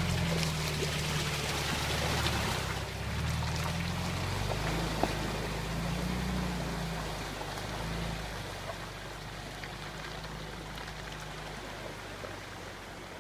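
UAZ off-roader's engine running with shifting revs as it drives through water and mud, with water splashing under the wheels. The sound grows quieter after about eight seconds.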